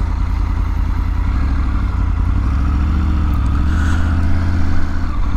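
Triumph Tiger 900 GT Pro's inline-three engine running steadily while the motorcycle rides along a gravel road, its pitch rising a little midway as it picks up speed.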